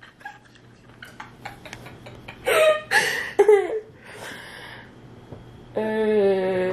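A woman's voice laughing: short high squeals and gasps about two and a half seconds in, then a long held vocal note near the end.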